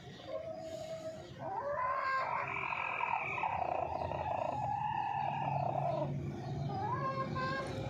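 Rooster crowing: one long drawn-out crow lasting about four seconds, with a brief shorter call just before it and another near the end.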